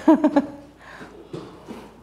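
A man's short laugh, three or four quick voiced ha's at the start, trailing off into faint low voice sounds.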